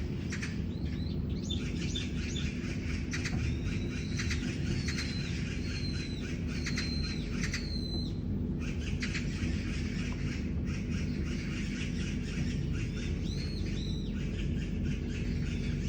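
Several small birds chirping and squawking at each other in a squabble, with many quick chirps and repeated arched call notes, over a steady low hum.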